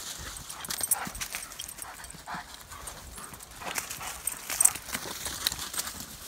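Dogs moving about on the ground during a meeting: irregular footfalls and paw scuffs, heard as scattered taps and rustles.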